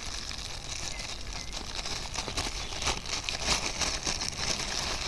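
Thin plastic packaging rustling and crinkling as it is handled, in irregular small crackles and clicks.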